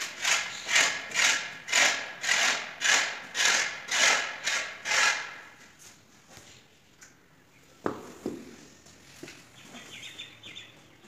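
Rhythmic swishing scrapes on a gritty stone floor, about two a second, fading out after about five seconds. A single sharp click follows near the eighth second.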